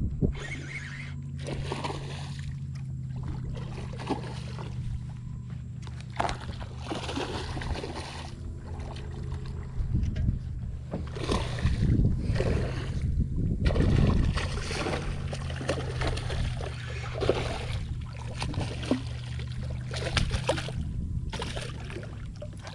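Water splashing and sloshing around a small boat while a hooked redfish is played in, in irregular short gushes that are heaviest in the middle, over a steady low hum.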